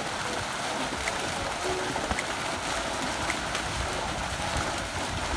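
Crowded fish thrashing and splashing at the surface of a harvest net as it is hauled up at a fish cage: a steady, continuous churning of water.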